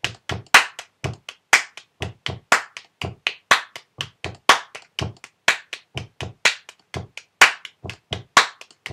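Body-percussion drum-kit groove played on the body: fingertip taps for the hi-hat, foot stomps for the bass drum and a mid-hand clap for the snare. It goes in a steady rhythm of about four hits a second, with the loudest claps landing about once a second.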